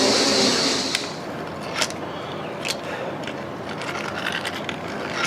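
Old South Bend metal lathe running through a parting-off cut, a steady hissing machine noise that stops suddenly about a second in. A few light clicks and knocks follow.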